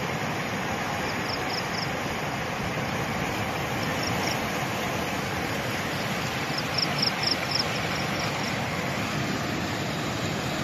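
Floodwater rushing through a breached earth embankment and past bamboo posts, a steady, even rush. Faint high chirps come in short runs a few times over it.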